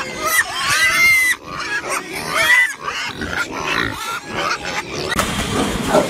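A group of pigs calling, with several high-pitched squeals that bend up and down over the first few seconds. A rougher, lower din of pig sounds follows from about five seconds in.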